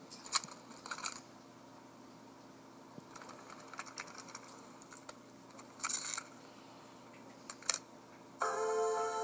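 Faint scattered clicks and light rustling, with a couple of sharp clicks in the first second and a short rustle about six seconds in. Music starts again shortly before the end, heard through computer speakers.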